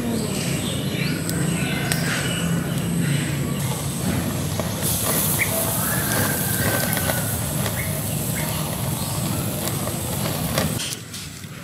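Open wood fire crackling steadily, with birds chirping in the background; the sound drops off sharply near the end.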